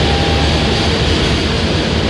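Economy passenger coaches of the KA Jayabaya train passing close by, a steady loud rumble and rush of wheels running on the rails.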